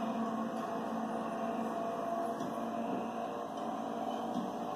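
A steady low hum over even background noise, with no distinct knocks or clicks.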